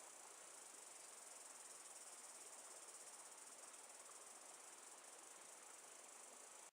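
Faint, steady, high-pitched chorus of insects, like crickets, shrilling without a break; it cuts off suddenly at the very end.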